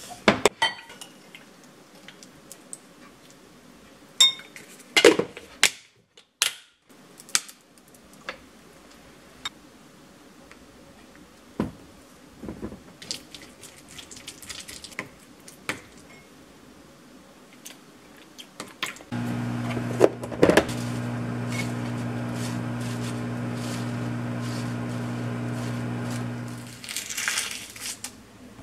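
A plastic food container and a spoon clink and tap against a glass mixing bowl as yogurt dressing is stirred, in scattered knocks. Later a steady low hum runs for about seven seconds and then stops, with one sharp click partway through. Soft rustling follows near the end.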